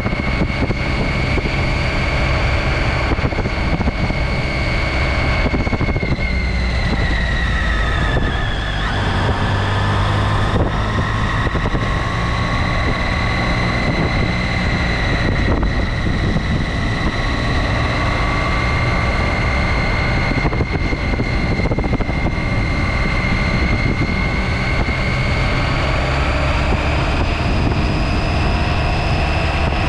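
2017 Triumph Tiger 800 XCx's three-cylinder engine running under way, with wind rushing over the microphone. A steady high whine drops in pitch around seven seconds in, then slowly climbs again.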